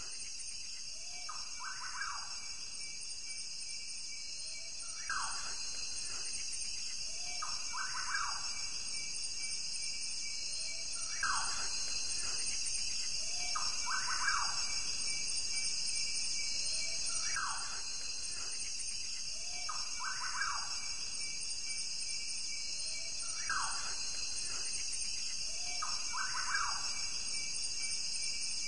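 Looped nature-ambience bed: a steady high-pitched chirring chorus, with short pairs of falling calls repeating about every three seconds.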